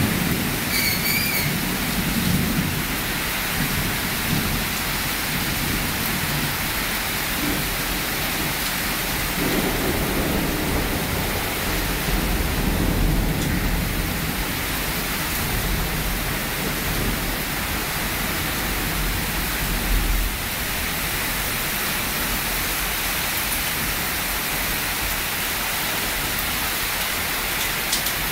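Heavy storm rain pouring down in a steady hiss, with a deeper rumble swelling between about twelve and twenty seconds in.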